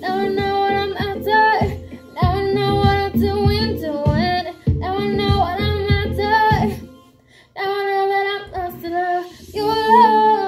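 A woman singing into a handheld microphone over a backing track with a beat, holding long notes. About seven seconds in the music drops out briefly, then she sings on over lighter backing.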